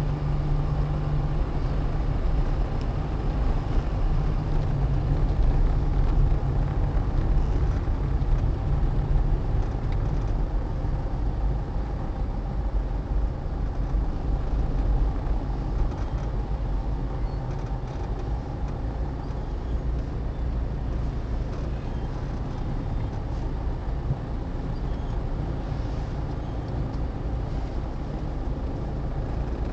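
Low, steady rumble of car and truck engines idling and creeping in stop-and-go traffic, heard from inside a car's cabin, with a low hum in roughly the first ten seconds.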